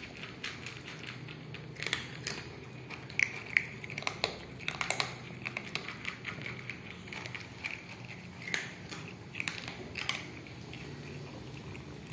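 Cats eating dry kibble, chewing it with many irregular crisp crunches and clicks.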